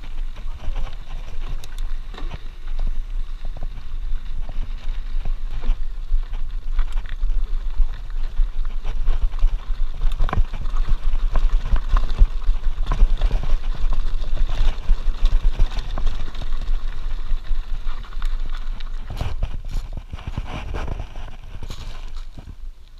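Trek mountain bike clattering over a gravel and rocky trail, picked up by a camera on the handlebars: a constant low rumble with irregular knocks and rattles as the bike jolts over stones, heaviest in the middle and easing near the end.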